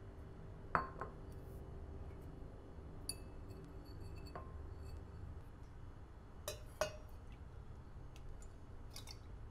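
A few sharp clinks of a wire whisk and a ceramic mixing bowl knocking against each other and a stainless-steel jug as egg custard filling is whisked and poured. The loudest comes about a second in, and two come close together about two-thirds through, over a low steady hum.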